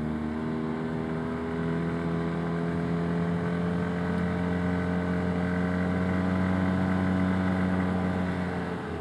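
Arctic Cat Wildcat Trail UTV engine running at a steady cruising speed, its pitch creeping up slightly and then dropping near the end as it eases off.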